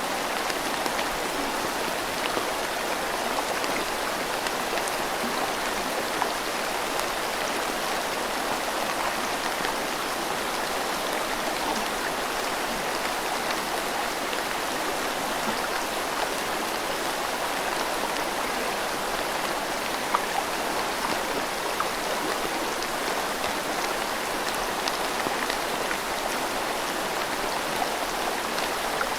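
Steady rain falling together with a flowing river: an even, continuous hiss with a few faint drop ticks.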